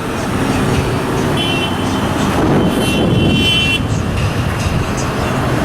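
Steady road traffic noise: cars and trucks passing on the road below. A high-pitched tone comes and goes twice in the middle.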